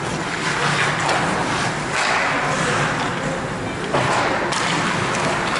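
Ice hockey play in an indoor rink: skates scraping on the ice and sticks working the puck, with short knocks and one sharp bang about four seconds in.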